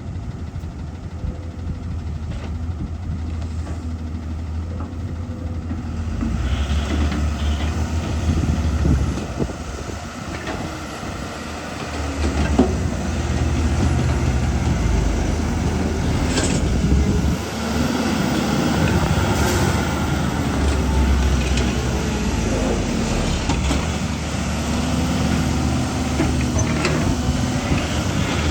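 Backhoe loader's diesel engine working under load, the revs rising about six seconds in, easing off, then picking up again around twelve seconds, with a few knocks of the loader as it works.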